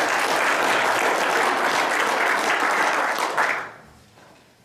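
A room of people applauding; the clapping stops quickly about three and a half seconds in.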